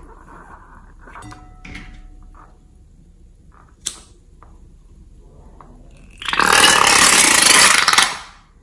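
Fingers squeaking on an inflated rubber balloon, then a sharp snip of scissors cutting its tip about four seconds in. About two seconds later comes the loudest sound: air rushing out of the cut balloon for about two seconds before it stops abruptly.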